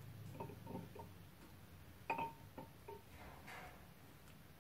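Faint sounds of a metal cake spatula spreading whipped cream over a sponge cake: soft scraping and a few light ticks, with one sharper clink about two seconds in.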